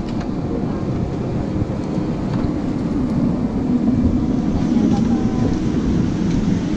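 Airliner cabin background noise: a steady low rumble from the aircraft's air system mixed with the murmur of passengers' voices and movement in the aisle.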